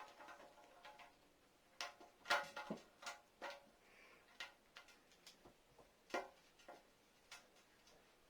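Plastic parts of a Play-Doh dentist playset clicking and knocking as they are handled, a dozen or so light, irregular taps, some with a brief ringing.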